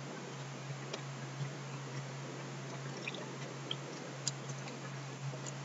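Quiet room tone with a steady low hum and hiss, broken by a few faint computer-mouse clicks.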